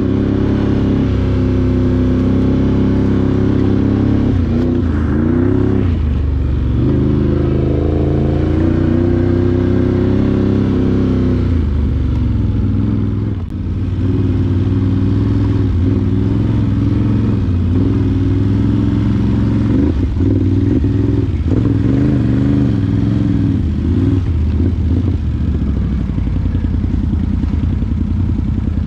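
ATV engine running while riding, its revs rising and falling with the throttle, with a brief let-off about halfway through.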